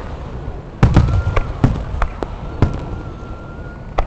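Fireworks going off: a quick run of sharp bangs and pops starting about a second in, another bang near the end, and a thin high whistle held through the second half.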